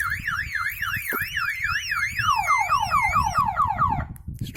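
Prestige van alarm siren going off, set off by the armed van being unlocked as with a cloned key: a warbling tone rising and falling about three times a second, switching a little after two seconds to fast repeated falling sweeps, then cutting off about four seconds in.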